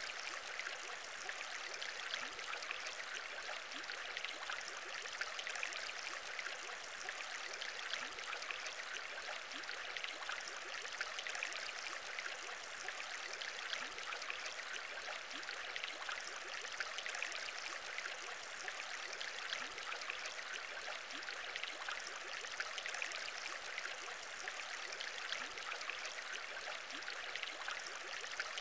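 Aquarium air bubbles rising through water: a steady, unbroken bubbling made of many small pops.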